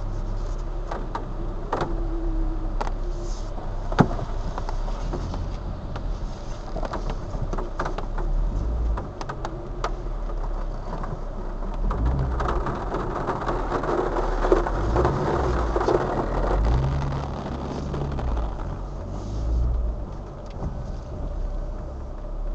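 A car driving on a wet road in rain, heard from a dashcam inside the cabin: steady engine and tyre noise with scattered sharp ticks and one louder knock about four seconds in. In the middle the engine note shifts up and down and the road noise swells.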